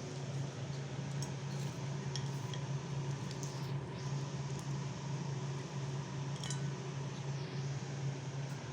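A few faint clinks of spoon and dishes over a steady low hum, like a fan running.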